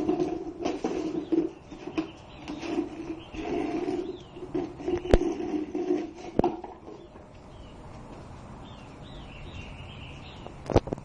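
A container scraping in short stretches and knocking as a dog pushes it around trying to get a bone out, with two sharp knocks midway. Small birds chirp faintly near the end.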